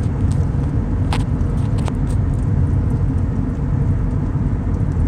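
Steady low rumble of a car heard from inside the cabin, with a couple of faint sharp pops about one and two seconds in.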